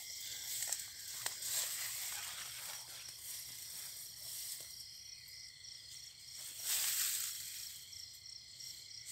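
Insects chirring steadily and high-pitched, one call in a fast, even pulse. A brief rustle about seven seconds in, with a few small clicks.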